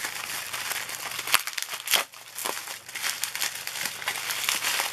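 Clear plastic bubble wrap crinkling and crackling as it is unwrapped by hand from a pen, with a few sharp crackles.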